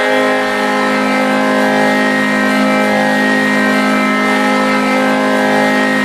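Charlotte Checkers' arena goal horn from the 2021–22 AHL season, sounding one long steady blast.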